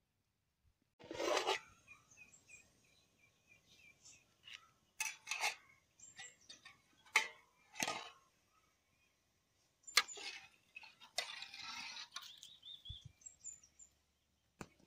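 Birds chirping in the background, with several brief rustles and knocks of handling close by.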